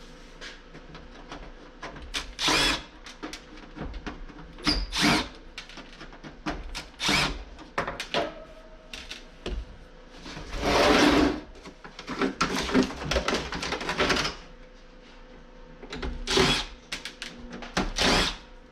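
Power drill running in short bursts, about eight times, backing screws out of an air conditioner's casing, with clicks and knocks between the bursts.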